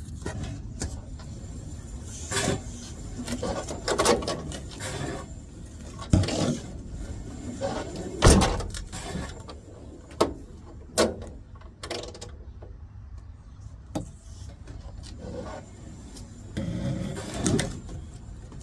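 Irregular knocks and clunks of objects being handled, over a low steady rumble.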